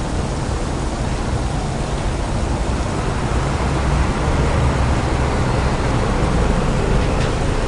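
Wet city street ambience: a steady wash of traffic noise with a low vehicle rumble, growing a little louder about halfway through.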